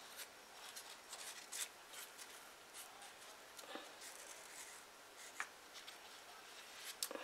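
Faint rustling and scratching of hands handling cotton wadding on a small paper mache dog figure, with scattered light clicks.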